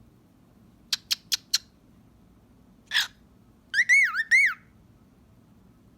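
Cockatiel making four quick kissing smacks, then a short harsh rasp, then a warbling whistle that rises and falls twice.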